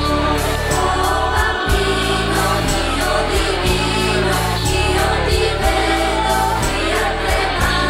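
Music: a choir singing over a steady low instrumental accompaniment with a regular beat.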